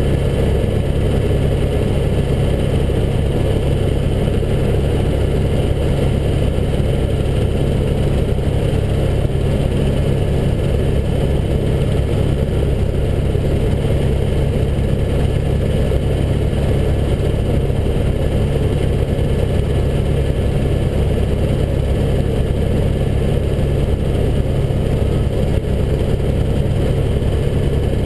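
Helicopter in flight heard from inside the cabin: a loud, steady, unbroken drone of rotor and engine, with thin steady high tones above it.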